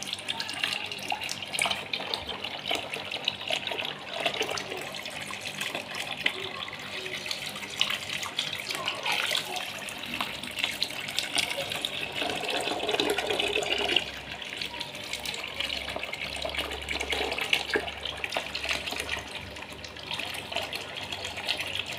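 Stream of water pouring and splashing into a plastic basin, with sharper splashes where a live snakehead thrashes in the water.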